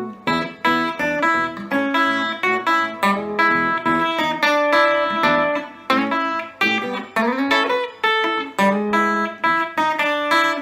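Epiphone Casino hollow-body electric guitar played through a Vox AC15C1X valve combo amp on its Top Boost channel, picking a steady run of single notes and short chord stabs, about two to three a second, each note ringing briefly before the next.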